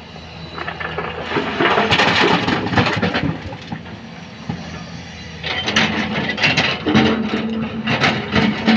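Volvo crawler excavator at work: its diesel engine runs steadily while broken rock and gravel clatter and scrape in two long spells, starting about a second in and again from about five and a half seconds, as the bucket digs into the rock pile.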